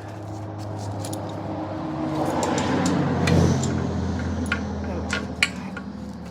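Metal hand tools clinking and clicking while working on a dirt bike, over a steady low hum that grows louder about three seconds in and then eases off.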